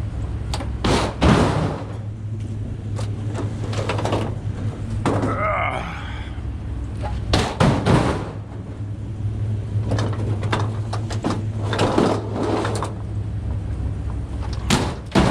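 Pieces of scrap metal being tossed and slid into a pickup truck bed: a series of separate clanks and bangs, with a scraping sound partway through, over a steady low hum.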